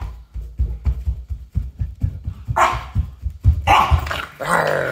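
Dog barking, with three louder barks in the second half over rapid low thuds.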